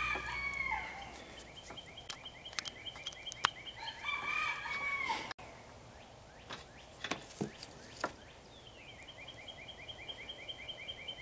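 A rooster crows twice, the second crow cut off abruptly. Between the crows and again near the end, a songbird sings a rapid trill of evenly repeated notes. A few sharp clicks come through in between.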